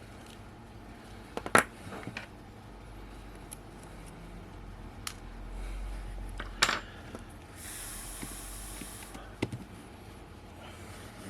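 Small metal tools and tiny screws clicking and tapping on a work surface during the teardown of a camera lens, with a few sharp clicks (the loudest about a second and a half in and again near seven seconds) and a brief hissy rustle near the end.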